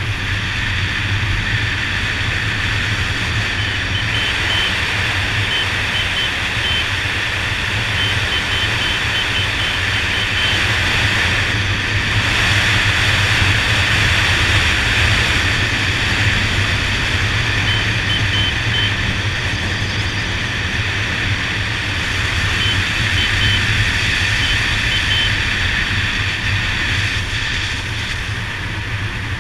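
Honda Dazzler motorcycle riding at speed, heard from a GoPro on the bike: steady wind rush over the microphone with the engine's low hum beneath it, swelling a little for a few seconds about twelve seconds in.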